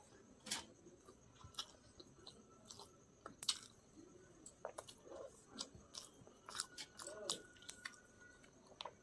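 A person chewing chicken biryani close to the microphone: irregular wet mouth clicks and smacks.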